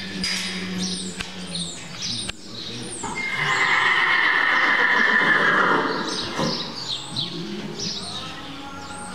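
A horse whinnies loudly about three seconds in, one long call lasting about three seconds, while small birds chirp throughout.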